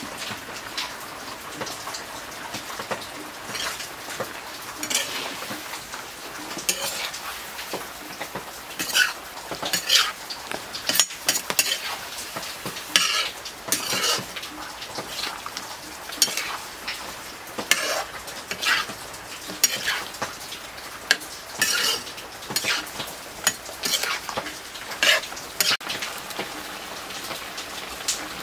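Pork pieces sizzling in a black iron wok while a metal spatula stirs them, scraping against the pan in irregular strokes, often one or two a second.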